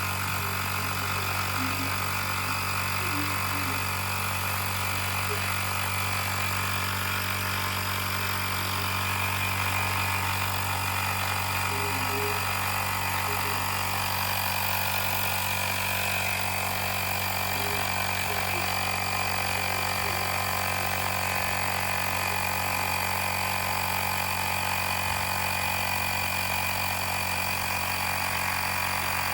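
Portable electric air compressor running steadily, inflating a basketball through a needle: an even motor hum with a high whine over it.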